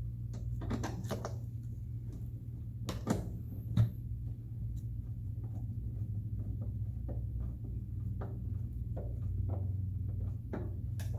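Plastic toy-house parts being handled and a screw being driven into them: scattered small clicks and ticks, with two louder knocks about three and four seconds in. A steady low hum runs underneath.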